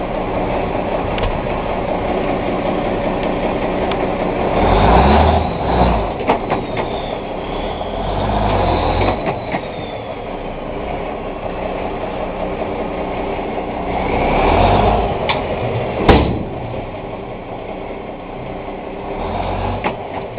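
Dump truck's diesel engine running steadily while the box is raised to dump a load of dirt, swelling louder a few times. Several sharp knocks cut through, the loudest about three-quarters of the way in.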